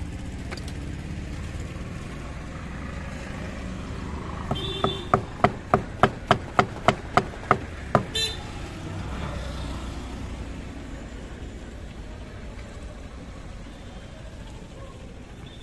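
A hinged chopping knife cutting a guava on a metal cutting plate: about ten sharp knocks in an even rhythm, roughly three a second, ending in a short scrape.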